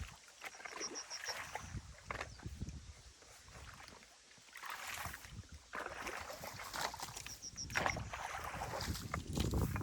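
Water and mud splashing and sloshing in irregular bursts as a small beaver dam in a stream is worked on. A bird gives a short, high, rapid trill twice: about a second in and again just before eight seconds.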